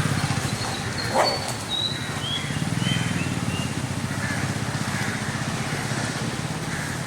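Vehicle engine idling with a steady low pulse. About a second in there is a short rising whine, the loudest sound, followed by a string of short high chirps that step down in pitch over the next two seconds.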